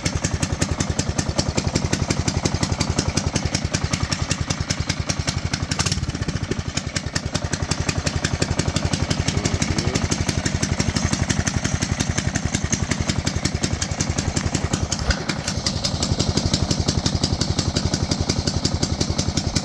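Single-cylinder Briggs & Stratton engine on a Baja mini bike running steadily with a rapid, even firing beat and a nice little lope, loud through its exhaust.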